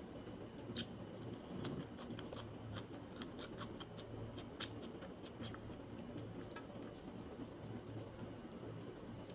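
Close-miked eating sounds from roast chicken eaten by hand: a run of small sharp crackles and clicks from fingers picking at and tearing the meat and from chewing, thinning out in the last few seconds. A steady low hum runs underneath.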